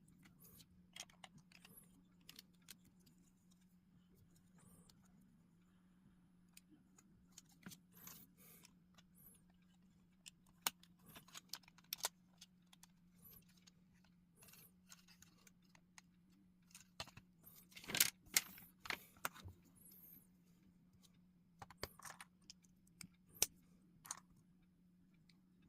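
Plastic LEGO pieces clicking and rattling as they are handled and pressed together, in scattered short clicks with a louder cluster about eighteen seconds in, over a faint steady low hum.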